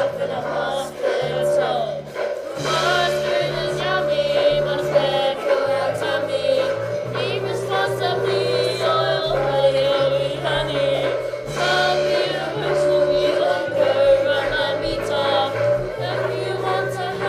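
A group of young students singing a song together over an instrumental backing with a low bass line that steps between notes.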